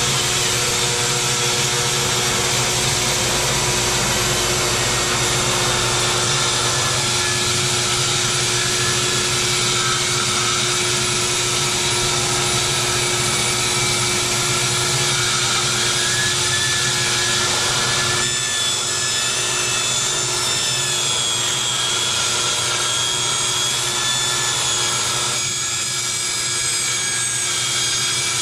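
Festool TS75 track saw ripping through a heart pine board more than two inches thick, its motor and blade running steadily under load, with a vacuum cleaner drawing off the dust through a hose on the saw. The tone of the whine shifts about two-thirds of the way through the cut.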